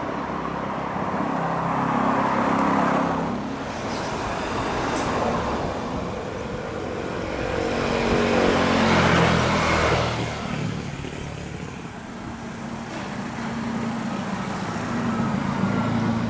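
Road traffic: engines of passing vehicles swelling and fading in waves, the loudest pass about nine seconds in with a falling pitch as it goes by.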